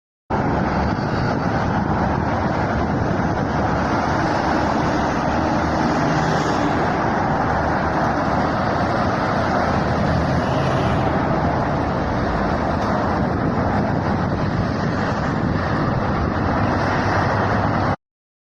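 Steady outdoor noise with no distinct events, cutting in abruptly and stopping abruptly about eighteen seconds later.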